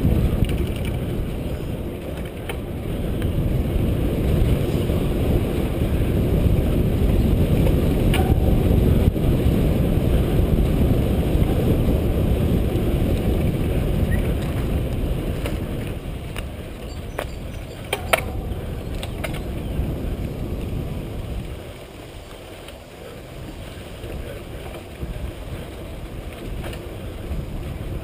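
Wind rushing over the microphone of a mountain bike rider's on-board camera, with the rumble and rattle of the bike riding a dirt trail and a few sharp knocks; it drops quieter about three quarters of the way through.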